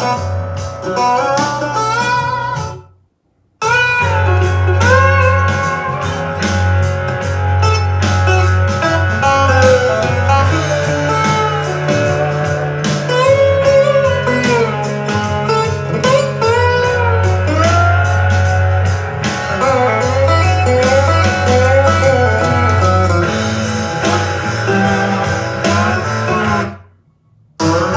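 Music with a guitar lead playing bending, sliding notes over a steady bass line, played back through a portable Bluetooth speaker in a sound test. It cuts out briefly about three seconds in and again near the end.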